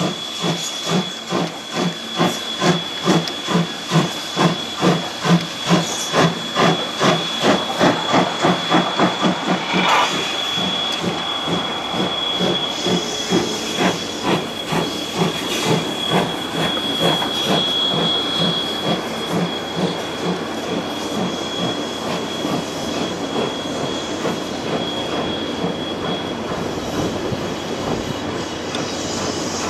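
JNR Class C58 steam locomotive C58 363 working under steam as it passes: rhythmic exhaust chuffs, about three a second, grow louder and then stop about ten seconds in. Its passenger coaches follow, rolling by with a steady rumble and clatter over the rail joints, over a thin steady high whine.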